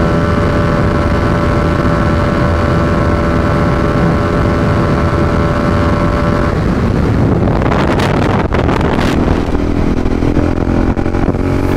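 TVS Apache RR310's single-cylinder engine running through an Akrapovic exhaust fitted with a dB killer and catalytic converter, holding a steady note at high cruising speed with wind on the microphone. About two-thirds of the way in, the tone gives way to wind and road noise, and then a lower engine note comes back, rising slightly.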